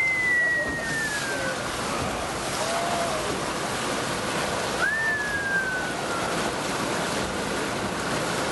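Steady wash of sea, wind and a boat under way, with waves breaking on rocks. Two long, high whistle-like tones fall in pitch, one at the start and one about five seconds in.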